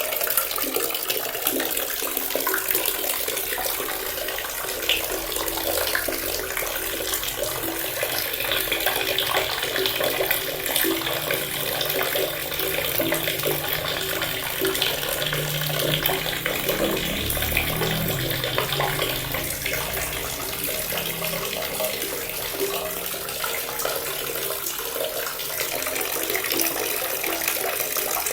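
Water running steadily from a tap, a continuous stream pouring and splashing into a basin.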